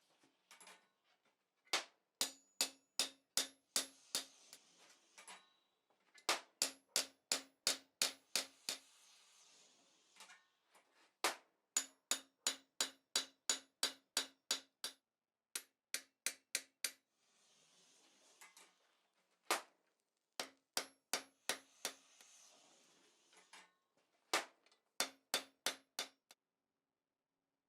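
Hand hammer peening a rivet over to form its head on blacksmith's calipers, struck against the work on a heavy bar: runs of sharp, ringing blows at about three a second, with short pauses between runs.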